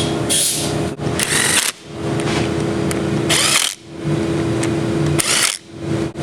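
Power drill-driver running screws into a transmission valve body, motor whirring in three runs of about two seconds, each ending with a short harsher burst and a pause as a screw is driven home.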